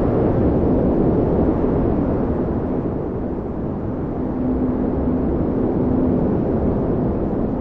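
Strong blizzard wind blowing with a steady low rumble. It eases a little about halfway through, then swells again, a faint howling tone rising out of it.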